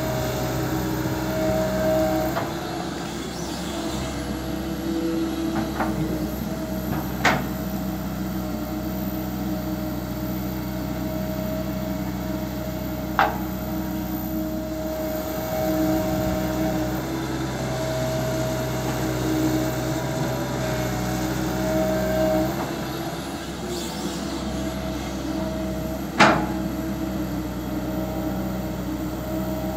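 Komatsu PC200LC hydraulic excavator's diesel engine running steadily under digging load, rising and easing a little as the arm works. Three sharp metallic knocks from the arm and bucket stand out above it.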